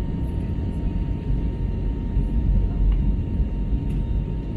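Airbus A321neo cabin noise during the climb: a steady low rumble of the engines and airflow, with a faint steady high tone over it.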